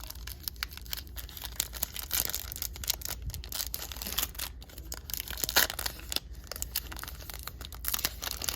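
Foil wrapper of a baseball card pack being torn open and crinkled: a dense run of crackles and rustles.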